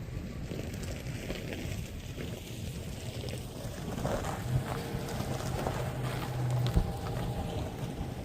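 Wind buffeting the microphone over a low engine rumble, with a steady low hum for a couple of seconds past the middle and a sharp knock near the end.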